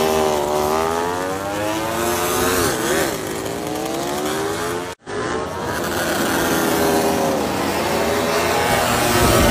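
Ducati MotoGP race motorcycles' V4 engines running on the track, their pitch sliding down and up as the bikes pass. The sound breaks off abruptly about five seconds in, then another bike's engine carries on in the same way.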